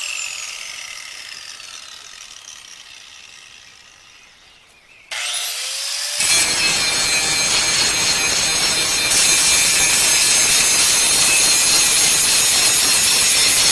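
Electric angle grinder winding down with a falling whine. About five seconds in it spins back up and bites into the truck's steel exhaust elbow, grinding loudly and steadily with sparks flying as the old pipe is ground away for a muffler replacement.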